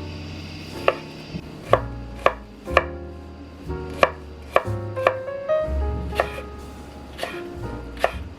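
Kitchen knife chopping on a cutting board: about ten single, unevenly spaced strokes, over quiet background music.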